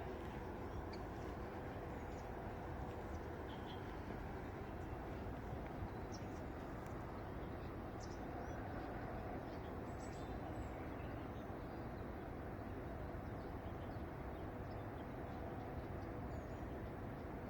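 Outdoor park ambience: a steady low background rumble with a faint steady hum, and occasional short, faint bird chirps scattered throughout.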